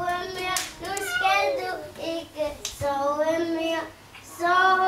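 Children singing a song together in held notes, phrase by phrase, with short breaks about two and four seconds in.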